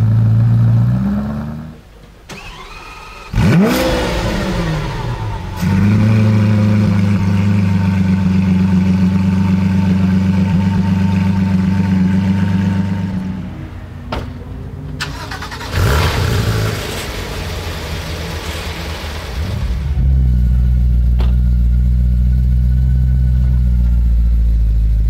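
Several supercar engines in turn: a Ferrari F40's V8 idling until it drops away about two seconds in, then a Lamborghini Aventador's V12 starting with a quick rise and fall in revs and settling into a steady idle. Around sixteen seconds an engine fires up again with a burst of revs, and from about twenty seconds a BMW M3's V8 idles steadily.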